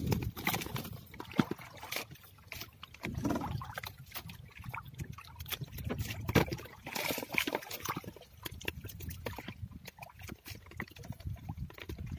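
Wet gill net being hauled by hand over the side of a small outrigger boat: water dripping and trickling off the mesh, with irregular clicks and knocks of the net and its floats against the hull.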